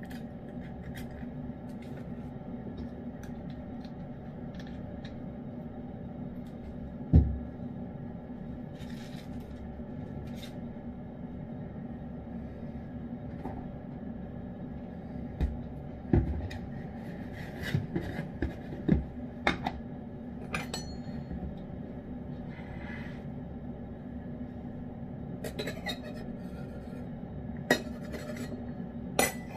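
Clinks, knocks and scrapes of a spoon against a ceramic cat dish over a steady hum. There is one sharp knock about seven seconds in, a scatter of clicks in the middle, and a cluster of clinks near the end.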